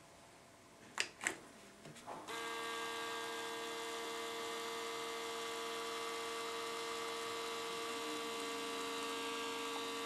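Several battery-powered tubular shade motors (A-OK, Gaposa, Rollease and Somfy Li-ion roller-shade motors) running together on a bench: two clicks about a second in, one motor winding up, then from about two seconds in a steady hum of several motor tones at once. Near eight seconds one tone drops lower, and most of the hum cuts off at the very end.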